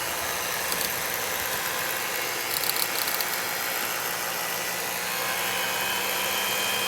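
Electric kitchen mixer motor running steadily, as for mashing potatoes, with a few light clicks about three seconds in.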